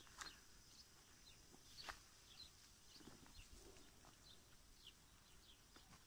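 Faint rural ambience: scattered short chirps of small birds and a few soft footsteps on dry ground, over a faint steady hiss.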